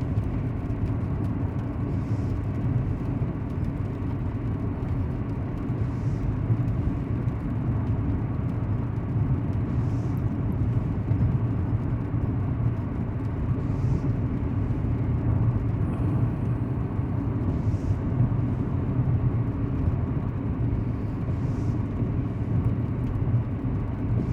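Steady low rumble of a truck's engine and tyres heard from inside the cab while cruising on the highway, with a faint soft swish about every four seconds.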